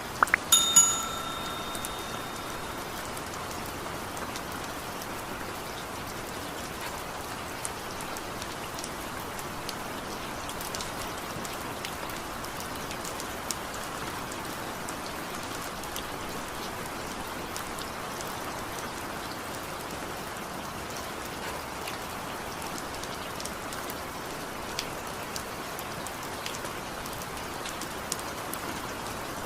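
Steady rain falling, with individual drops tapping sharply here and there. A cluster of louder taps comes about half a second in, one leaving a short ringing tone.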